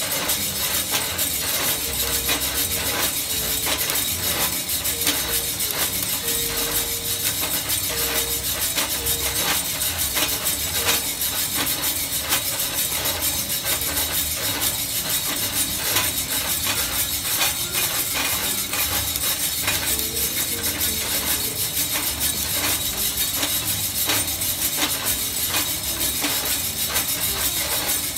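Coffee beans in a home-built stainless-steel drum roaster, popping at first crack: many sharp, irregular clicks over a steady hiss.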